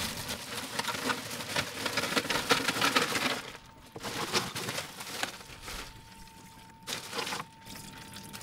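Ice cubes poured from a plastic bag into an aluminium ice-box tank, rattling and crackling steadily, with the bag crinkling; the pour stops about three and a half seconds in, followed by a few short rustles of the bag. A faint steady whine comes in about six seconds in.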